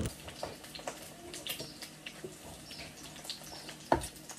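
Faint sizzle of food frying in a pan, with small clicks and scrapes of a knife and fork against the pan, and one louder knock near the end.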